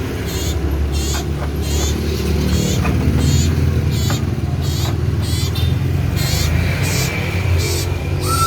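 Common iora (cipoh) singing a fast string of short, high, wavering notes, a little under two a second. Under the song is a loud steady low rumble.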